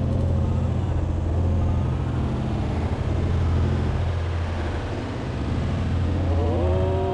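Small fishing boat's motor running steadily at cruising speed, a low drone under the rush of wind and water from the wake. Near the end a wavering, higher-pitched sound comes in over it.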